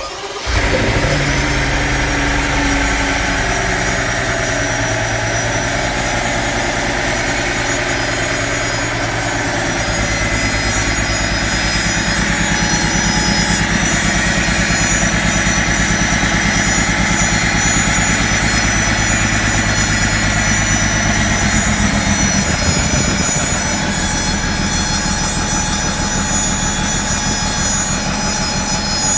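A machine running with a loud, steady buzzing hum. It comes up to full level about half a second in, and its low hum changes character about three-quarters of the way through.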